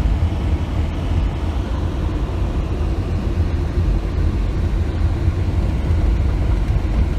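Waterfall: a steady, loud rush of falling water, heavy in the deep lows.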